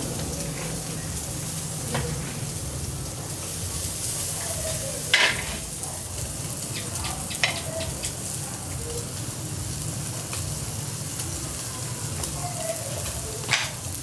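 Pork chops and hot dogs sizzling on a small charcoal grill, fat spitting over the glowing coals in a steady hiss. A few sharp clicks stand out, the loudest about five seconds in.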